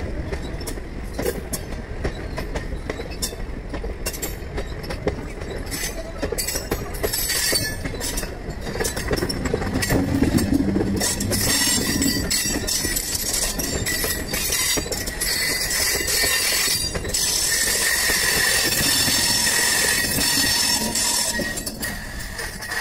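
Indian Railways passenger coaches rolling past close by with a steady rumble, the wheels clicking and clattering over rail joints. Past the middle a steady high-pitched wheel squeal rises over the rumble, then fades near the end.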